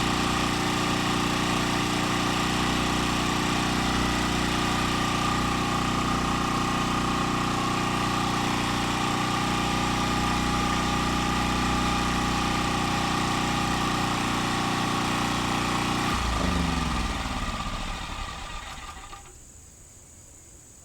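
Champion 1400-watt portable generator running under load, powering an electric air compressor that is pumping up its tank, a steady mechanical drone. About sixteen seconds in, the running stops and the pitch falls away as the machinery winds down over a few seconds, leaving it much quieter.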